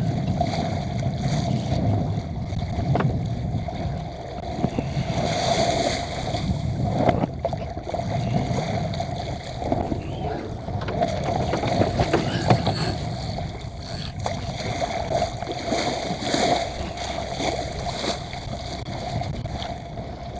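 Small sailboat running hard in strong wind: water rushing and splashing along the hull, with wind noise, swelling and easing.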